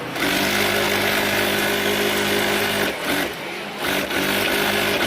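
Industrial sewing machine running at full speed as it stitches, with a steady motor hum and needle clatter. It stops for about a second about three seconds in, then runs again. It is working normally after repair.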